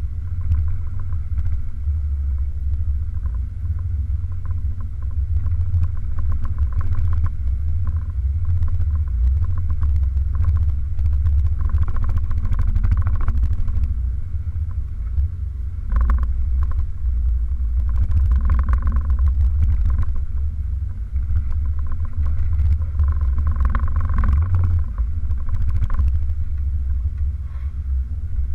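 Toyota 4x4 driving slowly over a rough, muddy trail: a steady low engine and drivetrain rumble, heard muffled from a camera on the hood, with occasional knocks and rattles as it goes over bumps.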